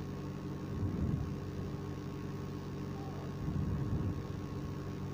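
A steady low mechanical hum, with two brief low bumps about a second in and again around three and a half seconds in.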